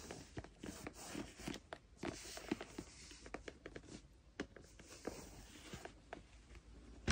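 Faint rustling and scuffing of a cloth rubbed along a leather boot's welt, with small irregular clicks and knocks as the boot is handled and turned; a louder knock at the very end.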